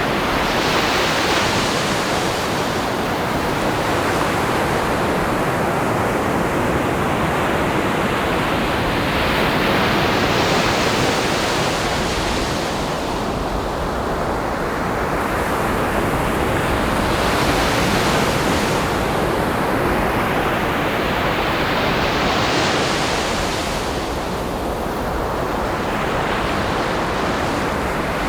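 Ocean surf: waves breaking on the shore one after another, a fresh wash of spray and hiss swelling every four to five seconds over a continuous rumble.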